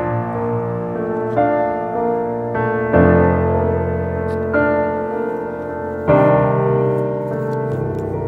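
Background piano music: slow, sustained chords, a new one struck about every one and a half seconds.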